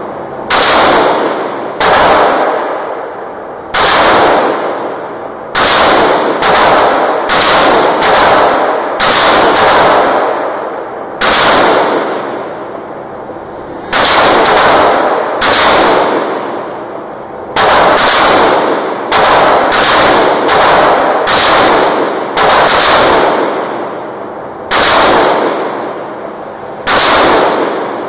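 Handgun fired about two dozen times at an irregular pace, some shots in quick pairs and runs, others a second or two apart. Each shot rings on in the enclosed concrete range.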